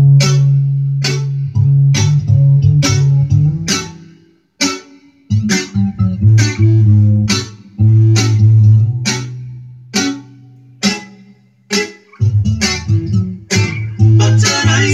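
Home-recorded song playing back from a computer music program: bass and plucked guitar notes over a steady beat of about two hits a second. The music drops out briefly twice.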